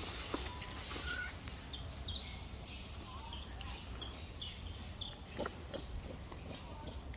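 Outdoor ambience: scattered short bird chirps over a steady high insect buzz and a low rumble, with a few faint knocks.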